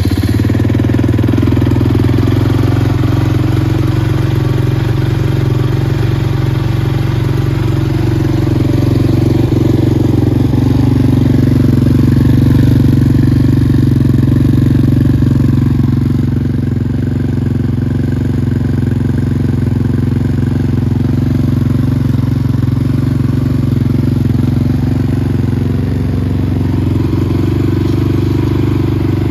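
Honda TRX450 quad's single-cylinder four-stroke engine, just started and idling steadily, picking up slightly in speed around the middle before settling back.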